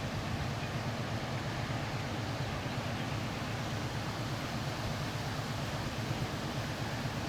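Steady low engine rumble of a river passenger motor ship, under an even hiss of wind and water.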